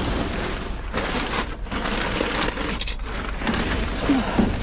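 Plastic bags, bubble wrap and cardboard rustling and crinkling in irregular flurries as hands dig through a dumpster's rubbish.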